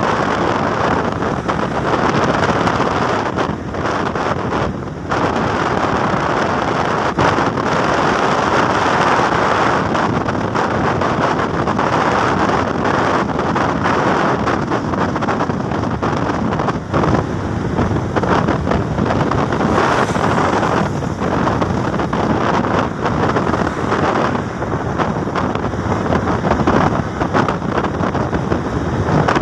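Wind buffeting the microphone of a vehicle moving at road speed, mixed with the steady road and engine noise of the ride. The rushing noise runs steady, with brief dips and flutters.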